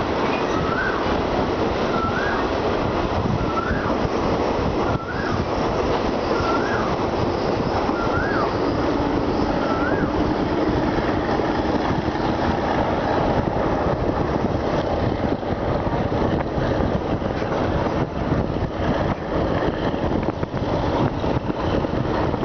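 Passenger coaches of a Thai diesel-hauled express train running on the rails, heard from an open coach window: a steady rumble and rush of wheels and air as the train moves away from the station. In the first half a short rising chirp repeats about every second and a half.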